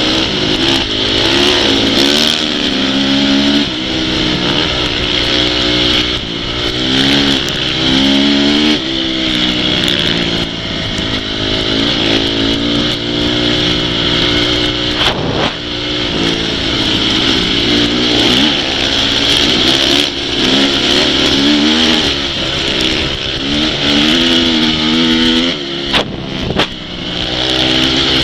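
Off-road motorcycle engine revving hard, its pitch climbing and dropping over and over as the throttle opens and shuts, with a couple of sharp knocks.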